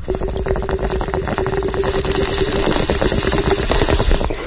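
Bong hit sound effect: water bubbling and gurgling rapidly through a bong, with a steady pitched note held through most of it.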